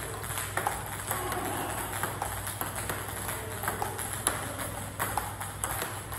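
Table tennis ball clicking in a steady rally, bouncing on the table and struck with backhand blocks off a short-pimpled rubber bat, about two clicks a second.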